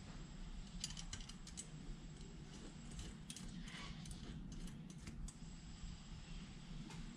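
Faint clicks and clinks of small metal throttle-linkage parts and hand tools being handled and fitted, in scattered groups about a second in and again around three to four seconds in, over a steady low hum.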